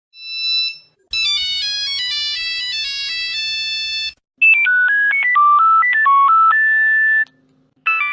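Nokia mobile phone ringtones played back to back: a short swelling tone, then a melody in full chords lasting about three seconds, then a simpler single-note beeping melody over a low hum, and after a short gap another chordal ringtone starts near the end.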